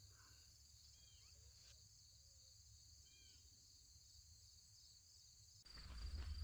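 Near silence with a faint, steady high insect trill and two brief, faint bird chirps. Louder outdoor sound comes in near the end.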